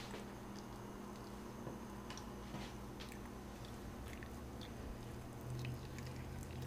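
Spatula stirring melted chocolate and cream in a glass bowl: soft wet squishing with scattered light taps against the bowl, over a low steady hum.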